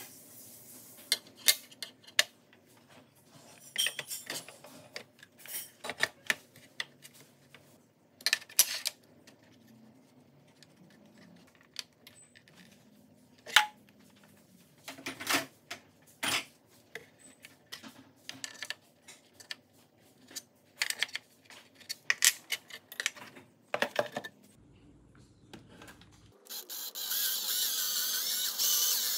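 Light metallic clinks and knocks as an aluminium channel and other metal parts are handled and set down on a plate. Near the end a cordless drill starts up and runs steadily, drilling into the plate.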